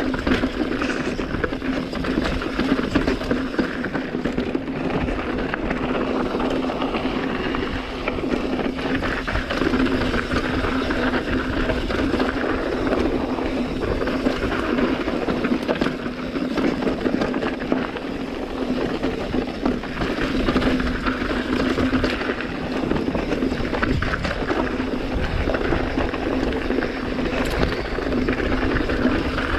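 Mountain bike riding over a loose, rocky dirt trail: continuous rattling of the bike and crunch of the tyres on gravel and stones, with wind on the microphone. A steady low hum runs underneath.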